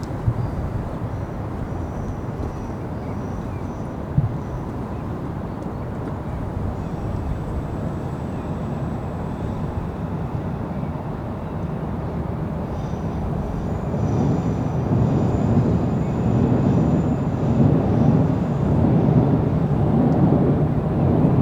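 City rooftop ambience: a steady low rumble of distant city traffic that swells louder about two-thirds of the way through, with faint high tones over it.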